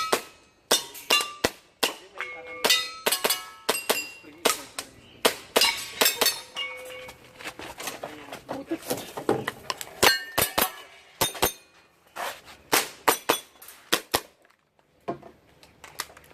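Airsoft pistol firing many sharp shots in quick, irregular strings with short pauses between groups. Some shots are followed by a brief metallic ring, as of steel targets being hit.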